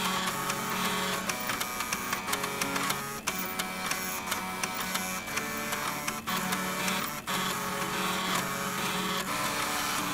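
Floppy drive music: the head stepper motors of eight floppy drives, together with three stepper motors, buzz out a multi-part melody in steady pitched notes, with clicking from the drive heads.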